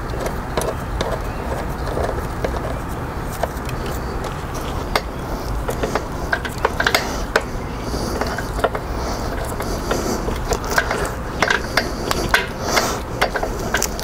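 Metal clicks and rattles of a motorcycle drive chain being handled and worked with a chain breaker tool. The clicks grow more frequent in the second half, over a steady low background rumble.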